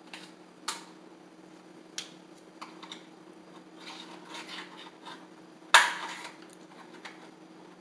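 Light clicks and taps of a window-blind valance knocking against the blind's headrail as it is fitted, then one loud sharp snap about six seconds in as it is pressed onto its clips, with a brief rattle after it.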